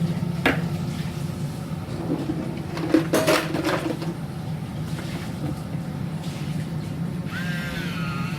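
A can being handled, with a sharp click and then a few knocks, over a steady low hum. Near the end an electric can opener's motor starts with a whine that dips in pitch and then holds steady.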